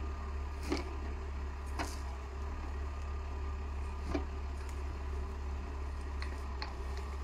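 Valtra 8550 tractor's diesel engine running steadily with a low drone while it drives the Kronos forestry trailer's hydraulic crane loading branches. A handful of short, sharp knocks and snaps come from the grapple handling the wood.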